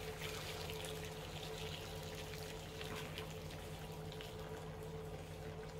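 Boiling water being poured from a pot into a roasting pan of dry lasagna noodles, a steady trickling and splashing, with a steady low hum underneath.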